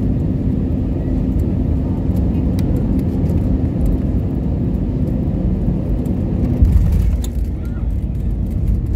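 Cabin noise of a jet airliner on final approach: steady rumble of the engines and airflow with a steady hum. A little over two-thirds of the way in there is a jolt and a heavier low rumble as the main wheels touch down and roll on the runway.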